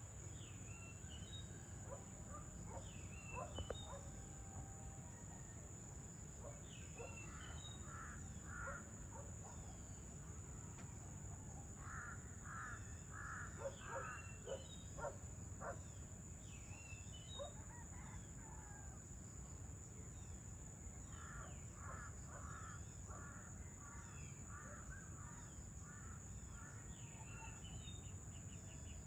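Evening outdoor ambience: a bird calls in three runs of several quick notes, about two a second, with small birds chirping in between. A steady high insect tone and a low steady rumble run underneath.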